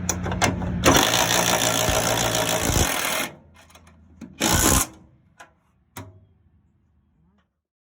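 A handheld power tool runs in a burst of about two seconds, then a second short burst, with sharp metallic clicks around it, as it drives in a bolt replacing a sheared rivet.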